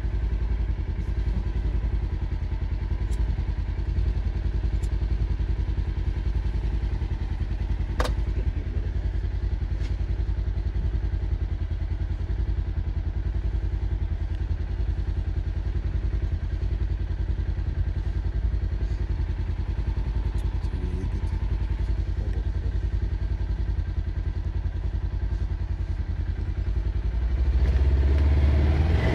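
A vehicle engine running with a steady low drone, a single sharp click about eight seconds in, and the engine sound growing louder near the end.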